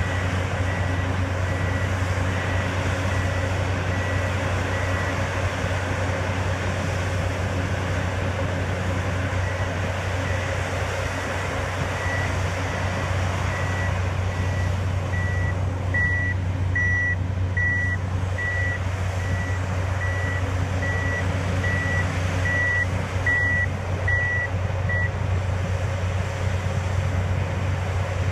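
Heavy construction machinery, a piling rig and an excavator, running with a steady deep engine drone. A backup alarm beeps about three times every two seconds, faint at first, louder from about halfway through, and stops a few seconds before the end.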